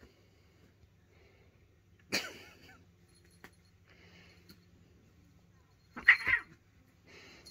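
Cats play-fighting, with three short hisses from a cat, about two seconds in, about six seconds in (the loudest) and near the end.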